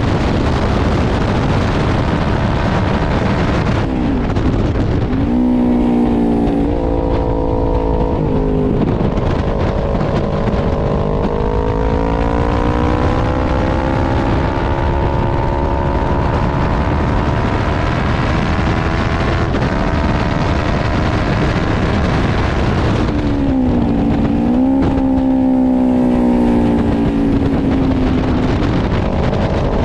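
Onboard sound of a 400-class racing motorcycle's engine with heavy wind rush over the microphone. The engine pitch drops with quick downshifts twice, near the start and again about three quarters of the way in, and between these it climbs steadily as the bike accelerates.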